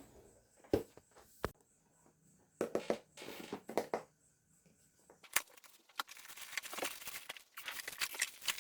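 A cardboard box being opened and its packaging handled: a few sharp clicks and knocks, then rustling and crinkling that grows busier in the second half.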